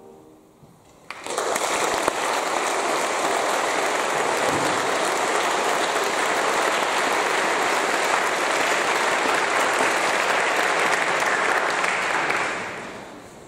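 Audience applauding, starting suddenly about a second in, holding steady, then dying away near the end.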